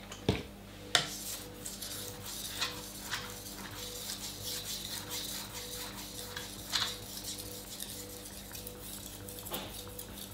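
Kitchen knife blade scraping back and forth on a wet water stone in repeated gritty strokes, rough-grinding the edge. Two sharp knocks come in the first second.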